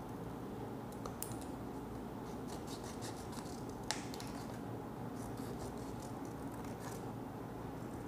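Scissors snipping through a sheet of white paper in short runs of crisp cuts, with one sharper snip about four seconds in.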